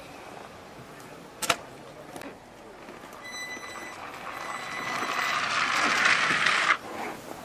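Ski jumper's skis running down the inrun track, a hiss that grows louder as the jumper gathers speed and then cuts off abruptly near the end. A single sharp knock about a second and a half in.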